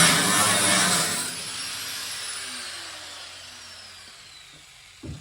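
Angle grinder cutting through sheet-metal truck bed floor, then released about a second in, its whine falling in pitch as the disc spins down. A short knock near the end.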